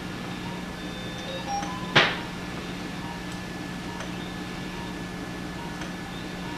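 Steady electrical hum of operating-room equipment with a faint high tone and small scattered ticks, broken about two seconds in by one sharp click or clank that rings briefly.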